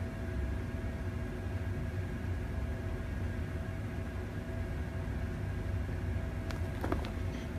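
Steady low mechanical hum with a few faint steady tones in it, like a household appliance or air handler running; a few short clicks about six and a half to seven seconds in.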